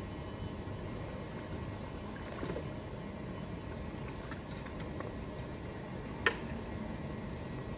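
A metal frame hauled out of the canal on a magnet line, with light dripping and splashing over a steady low background rumble. About six seconds in there is a single sharp clack as the frame lands on the towpath.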